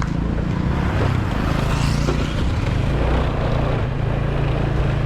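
Motorcycle engine running steadily on the move, with wind noise rushing over the action-camera microphone.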